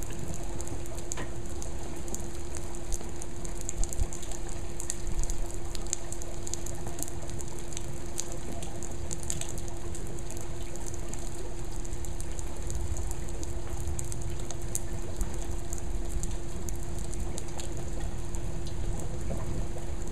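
Heavy monsoon rain falling steadily on a backyard pool and patio, with many sharp drops ticking close by. A steady low hum and a low rumble run underneath.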